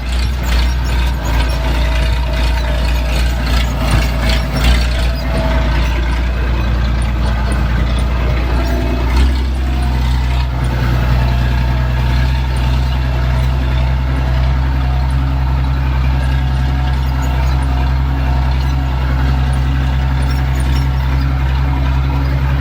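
A heavy engine running steadily, with clattering over the first few seconds. Its note shifts about nine seconds in and then holds steady.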